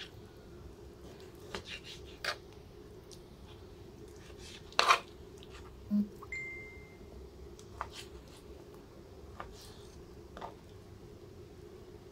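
Knife slicing raw chicken breast on a plastic cutting board, with the meat handled between cuts: scattered short knocks and scrapes, the loudest about five seconds in, over a steady low hum. A brief thin high tone sounds just after the middle.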